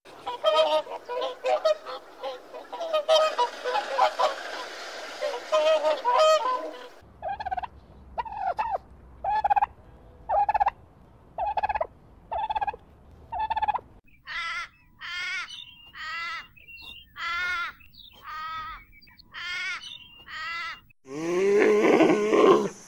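A series of honking animal calls in three cut-together passages: first a dense overlapping chorus, then single short calls repeated about every 0.7 seconds, then louder calls that bend in pitch, about one a second.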